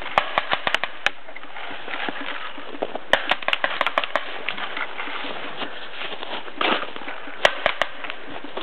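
Paintball markers firing: about half a dozen shots in the first second, a quicker string of shots around three to four seconds in, and a few more near the end.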